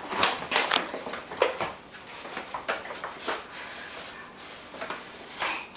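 Brown paper grocery bags rustling and crinkling as a toddler digs through them, in irregular crackles that come closer together in the first half.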